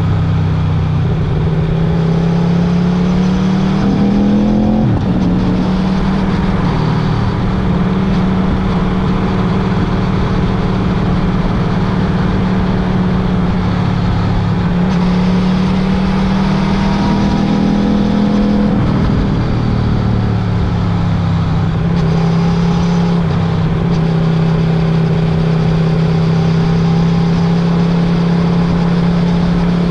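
Motorcycle engine running under way at steady speed. Its pitch slowly climbs and then drops abruptly twice, once about five seconds in and again near the twenty-second mark, as with gear changes or the throttle being closed.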